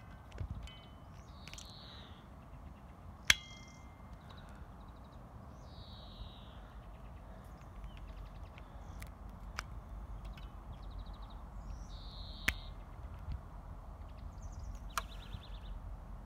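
Adjustable torque screwdriver's setting dial being turned by hand: a few sparse, sharp clicks, the loudest about three seconds in with a brief metallic ring.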